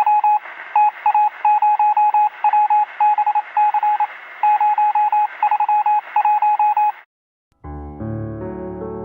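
Rapid, irregular electronic beeping on a single tone over a radio-like hiss, like Morse code keyed over a radio, stopping about seven seconds in. After a brief silence, instrumental music begins near the end.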